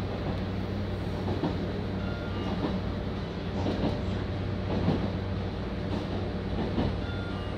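Train running at speed, heard from inside the carriage: a steady low hum and rumble, with the wheels clacking over rail joints now and then.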